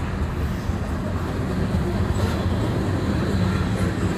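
Freight cars of a long mixed freight train rolling past, a steady rumble of steel wheels on the rails.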